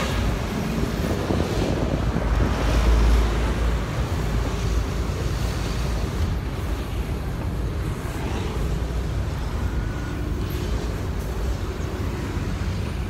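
Steady city street traffic, the engines and tyres of passing vehicles, with a heavier low rumble swelling about three seconds in as a vehicle goes by. Wind buffets the microphone.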